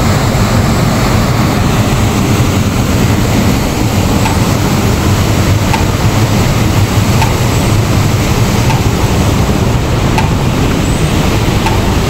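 Steady loud rushing noise, with a faint tick about every second and a half.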